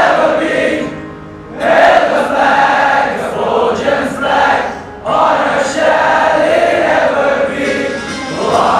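A choir singing an anthem in sustained sung phrases, with short breaks about a second in and again near five seconds in.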